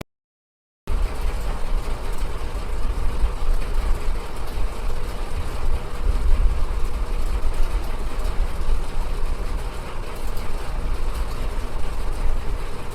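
Steady low rumbling noise with a hiss over it, like a vehicle running, starting suddenly about a second in after silence.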